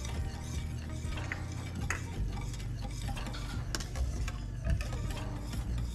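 Wire whisk stirring a thick milky liquid in a stainless steel saucepan. The wires make irregular clicks and scrapes against the pan.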